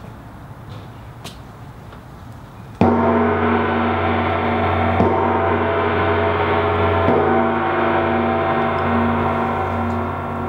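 A large hanging gong on a stand, struck with a mallet: one loud stroke about three seconds in, then two softer strokes about two seconds apart, the gong ringing on with a steady shimmer of many tones.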